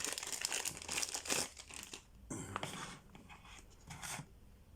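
Packaging crinkling and rustling as a flashlight is unwrapped and handled, busiest in the first two seconds, then a few scattered rustles and clicks.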